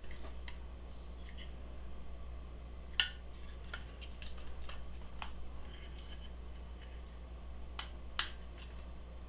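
Scattered light clicks and taps of small parts being handled as a nozzle connector is screwed onto a diode laser module, over a steady low hum.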